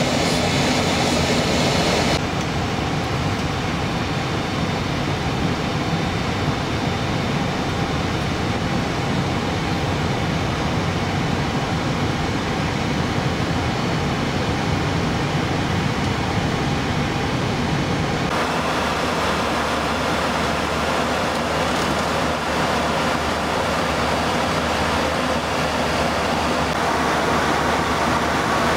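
Boeing 737 cockpit noise: a steady rush of airflow and engine drone. It changes sharply twice. About two seconds in it becomes a lower rumble while the jet taxis on the ground, and after about eighteen seconds it becomes a brighter, thinner rush at cruise.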